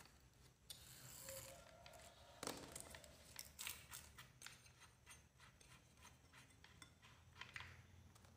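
Faint metal clicks and scrapes of an angle grinder's flange nut and cutting disc being taken off by hand, in a run of small clicks from about two and a half seconds in.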